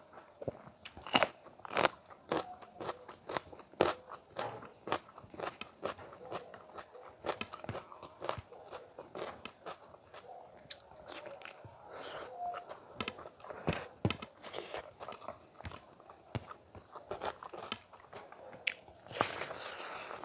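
Close-miked mouth sounds of eating: crunchy bites into a raw green chilli and wet chewing of rice and cauliflower curry, a run of sharp clicks and crunches with the loudest near the start.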